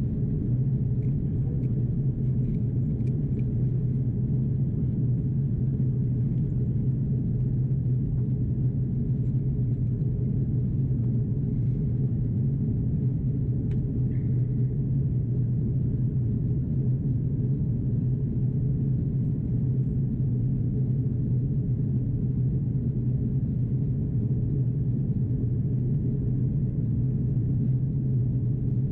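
Steady cabin drone of an Airbus A330-343 in descent, the noise of its Rolls-Royce Trent 700 engines and the airflow heard from inside the cabin. It is a low, even hum with a strong deep tone that does not change.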